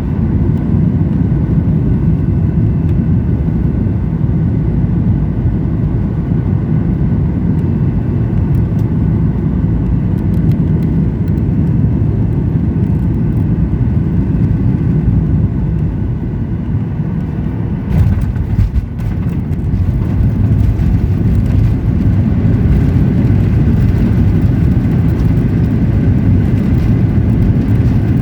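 Boeing 737-900ER cabin noise from a window seat, a steady low rumble of CFM56-7B engines and airflow. About two-thirds through a sudden jolt marks touchdown, followed by runway rollout with rattling.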